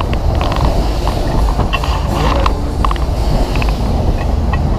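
PWS Twist (Sizzler) fairground ride heard from inside a spinning car: a loud, steady deep rumble, with scattered short high chirps over it.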